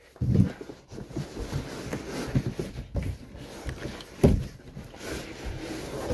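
Cardboard box scraping and rustling as a 100-pound heavy punching bag is slid out of it, with a thump near the start and another about four seconds in.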